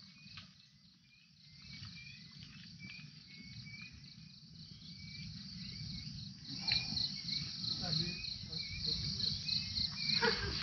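Insects buzzing in a high steady drone, with a short chirp repeating about twice a second; about two-thirds of the way in the buzz grows louder and turns into a rapid pulsing.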